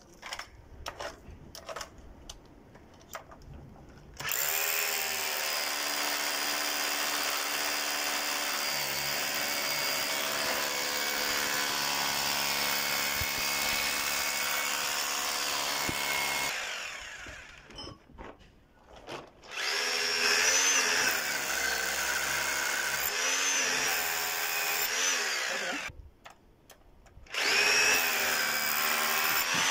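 Hilti rotary hammer drill boring into concrete, starting about four seconds in and running in three long stretches with short stops between, its motor pitch wavering under load. It is drilling a small test hole to check the concrete for honeycombing.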